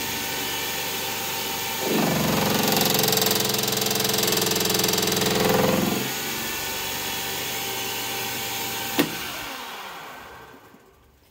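Small metal lathe running with a polished high-rake tungsten carbide insert cutting a chrome steel spanner in a heavily interrupted cut: the cut grows loud from about 2 to 6 seconds in, a harsh buzzing tone, then the spindle runs on more quietly. Near the end there is a single click, and the lathe spins down.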